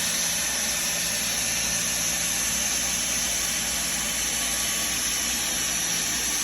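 Hot-air vinyl welding gun running steadily, a constant hiss of its blower and heated air with a low hum, as the vinyl weld rod is melted into a grooved seam in sheet vinyl flooring.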